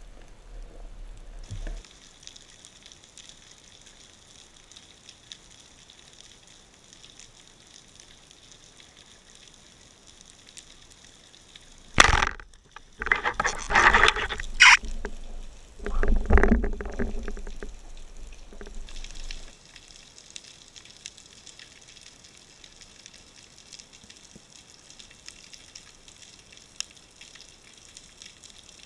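Water sounds through an underwater camera: a faint steady hiss with scattered faint ticks. About twelve seconds in come several seconds of loud, bursty water noise from movement close to the camera.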